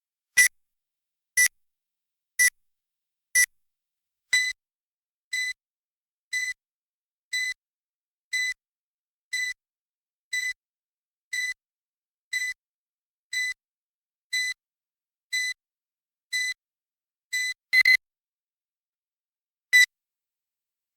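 Handheld metal detector wand beeping: short, high beeps about once a second. The first few are louder, a long run of quieter beeps follows, then a quick louder double beep near the end and one last loud beep after a pause.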